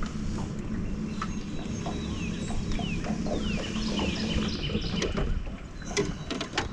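Birds calling outdoors, including a run of about four short descending whistles two to three seconds in, over a steady low rumble and scattered light clicks.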